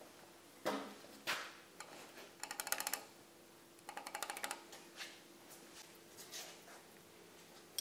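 Light metallic clicks and knocks from the rocker arms and rocker nuts of a Holden 304 V8 cylinder head being handled while the hydraulic lifter preload is set, with two short runs of rapid ticking about two and a half and four seconds in.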